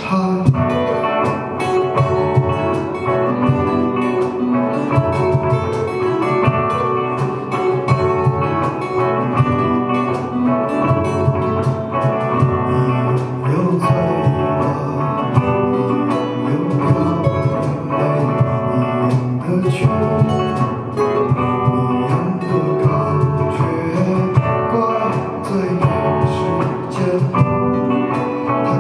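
Live band playing a rock song: guitars and bass over a steady, regular beat.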